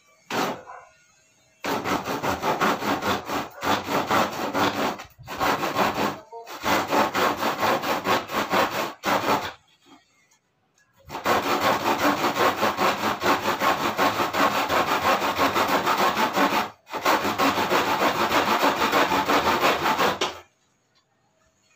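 Hand saw cutting through the wooden slats of an old crib in quick back-and-forth strokes. It stops briefly several times, pauses for about a second midway, and stops shortly before the end.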